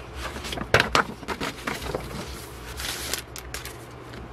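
Paper and plastic rustling and crinkling as a folded glossy poster and photos are handled. The sharpest crackles come about a second in, with another short run of rustling around three seconds in.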